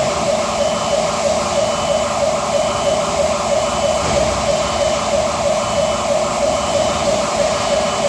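A loud, steady warbling warning tone that pulses about four times a second, with a short higher beep repeating about once a second, over a hiss of factory noise.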